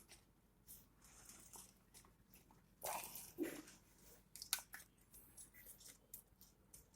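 Faint rustling and a few light clicks of things being handled, the clearest about three seconds in and around four and a half seconds.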